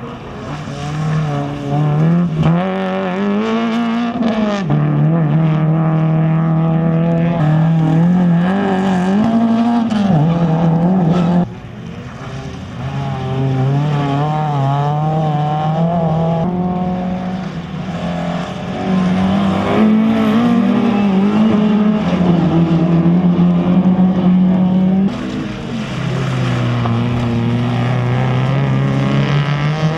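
Rally cars (a Suzuki Swift, a Toyota Celica and a Toyota Yaris) driven hard over wet gravel, one after another, engines revving up and dropping in pitch over and over as they change gear. The sound changes abruptly twice as one car gives way to the next.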